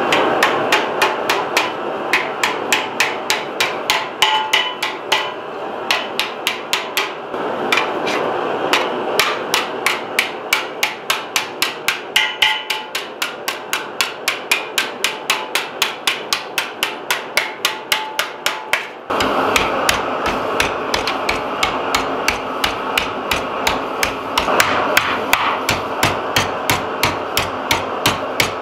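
Ball-peen hammer striking thin sheet metal clamped in a bench vise, bending it over the jaws with rapid, evenly spaced blows, about three a second.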